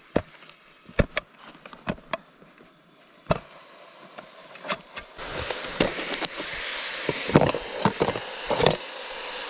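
A metal utensil and the lid and foil wrap of a camping mess tin clicking and knocking as the pot of steeped instant noodles is opened. A steady hiss comes in about five seconds in and keeps on under the knocks.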